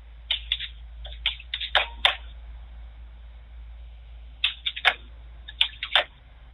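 Short bursts of keyboard typing: sharp clicks in three irregular clusters, over a steady low hiss.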